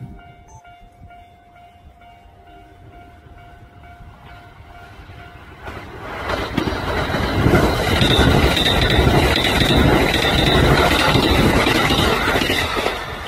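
Electric train running by on the rails: after a few quiet seconds with a faint steady tone, a loud rushing noise builds about six seconds in and stays loud, with a high steady whine over it.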